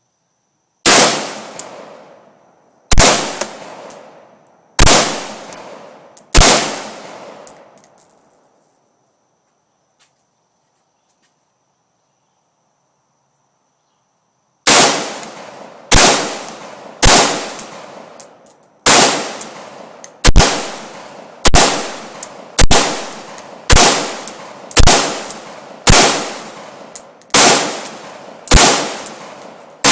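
AR-15 semi-automatic rifle fired one shot at a time: four shots about two seconds apart, a pause of about eight seconds, then a steady string of shots about one a second. Each loud crack trails off in an echo.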